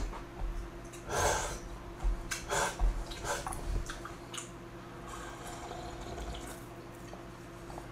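Person slurping and drinking jjamppong broth straight from the bowl: a few short slurps in the first four seconds, then quieter drinking as the bowl is tipped up.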